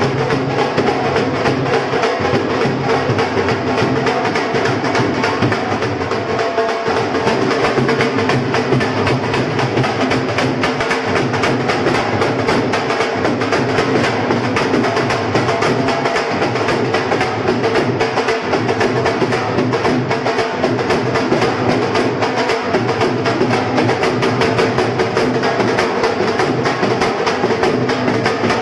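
Two dhol drums played live with sticks, a fast, continuous drumbeat of dense strokes that keeps going without a break.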